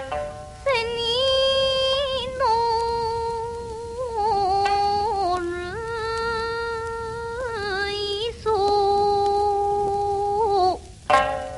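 A female singer in Japanese min'yo folk style, heard from an old 1950 record, holding a series of long notes, each bending into the next with small wavering turns. The singing stops briefly about eleven seconds in.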